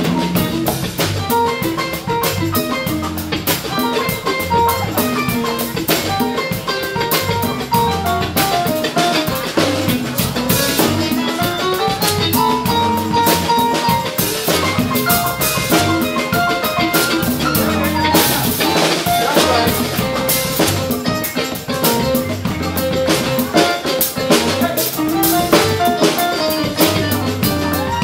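Live band playing a song, with a drum kit keeping a steady beat under guitar and melody lines.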